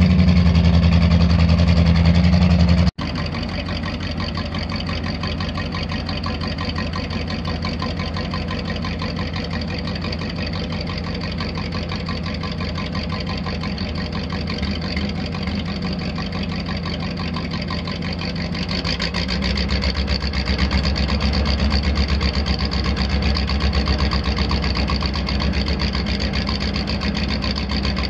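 Gasoline V8 engine of a 1973 GMC 6000 truck running steadily. The sound drops suddenly about three seconds in and grows louder again from about nineteen seconds in.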